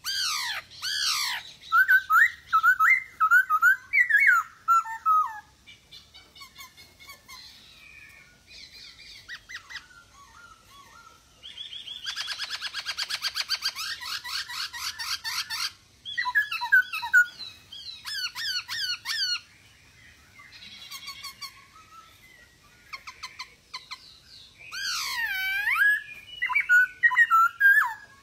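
Black-throated laughingthrush (poksay Hongkong) singing loud, varied whistled phrases with swooping notes. About twelve seconds in the song breaks into a fast chattering run, and there are a few quieter pauses between phrases.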